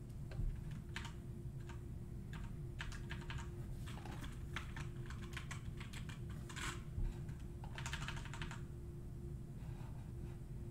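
Computer keyboard typing in short bursts of keystrokes, over a faint steady hum.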